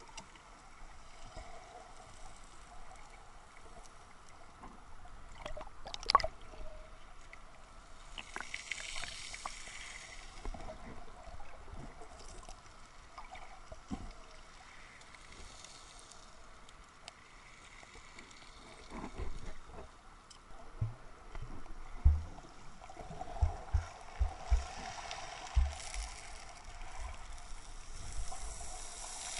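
Small sea waves washing in and out over a pebble beach, the surf hiss swelling twice. A sharp click about six seconds in, and several low thumps in the last third.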